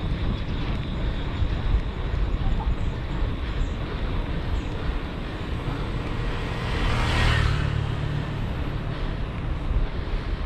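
Steady wind and road rumble of a ride, with a passing vehicle swelling and fading about seven seconds in.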